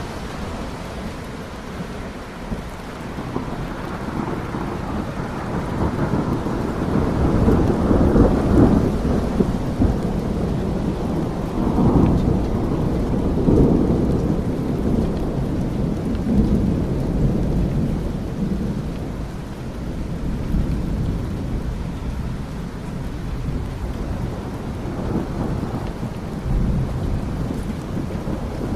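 Steady rain with a long rolling rumble of thunder that swells a few seconds in, is loudest around the middle, and slowly fades.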